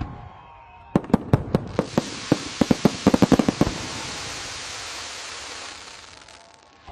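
Fireworks going off: a quick run of sharp bangs starting about a second in, followed by a crackling hiss that fades out over the next few seconds.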